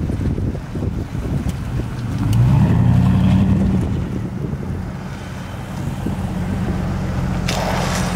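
A vehicle engine running steadily, loudest a couple of seconds in as a vehicle passes close by, over a low wind rumble on the microphone. A brief hiss comes near the end.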